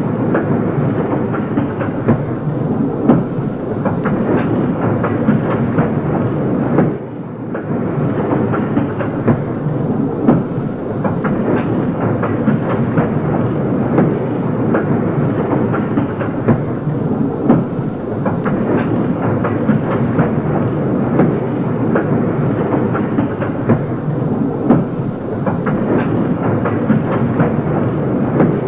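Railroad cars rolling by, their wheels clicking and clattering steadily over the rail joints, with a brief drop in level about seven seconds in.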